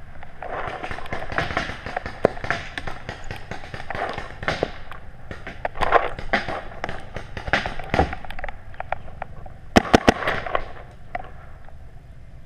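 Paintball markers firing: scattered sharp pops, with a quick burst of about four shots about ten seconds in.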